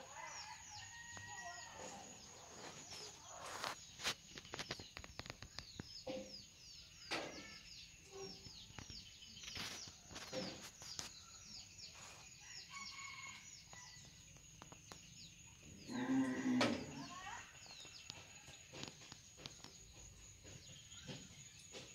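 Farmyard chickens clucking, with the loudest call about sixteen seconds in, over a steady run of small birds chirping and a few sharp clicks.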